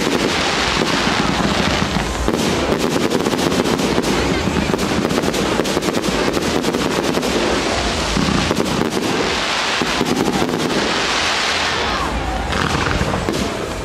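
Fireworks display: aerial shells bursting in quick succession, a dense run of sharp bangs and cracks.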